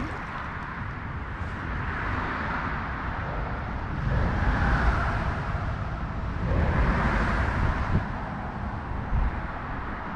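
Motorway traffic on the autobahn: a steady rush of tyre and engine noise, with two vehicles swelling past and fading, about four and seven seconds in.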